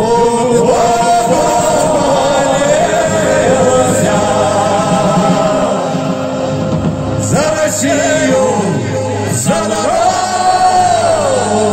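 Live band playing a Russian folk-rock song: male voices singing long held notes over button accordion, guitars and drums, heard through a PA system.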